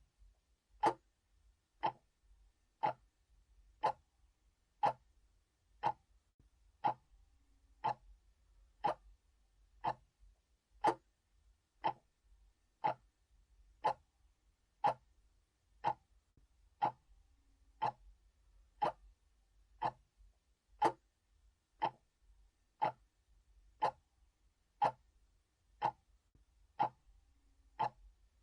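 Analog clock ticking steadily, one sharp tick each second.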